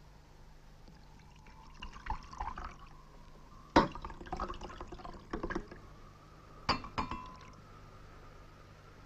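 Glass bottles and cups clinking against each other and drink being poured, with three sharp clinks, the last one ringing briefly. A steady low hum runs underneath.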